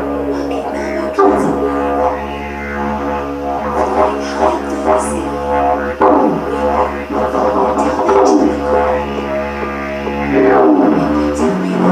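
Didgeridoo playing a continuous low drone. Its overtones sweep up and down over the drone and the loudness pulses in a rhythm.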